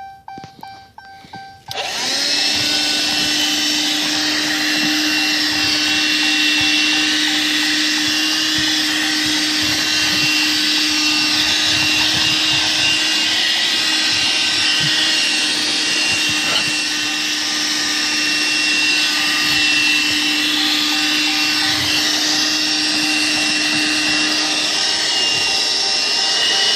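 Armor All car vacuum switching on abruptly about two seconds in, then running steadily with a constant motor hum and loud airflow hiss.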